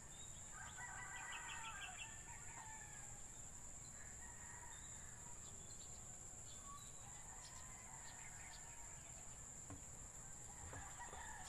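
A rooster crowing faintly, one call about a second in, over a steady high-pitched insect drone. A few faint ticks follow later.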